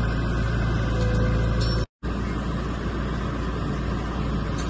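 Crawler bulldozer's diesel engine running steadily, a low rumble, with a brief dropout about two seconds in.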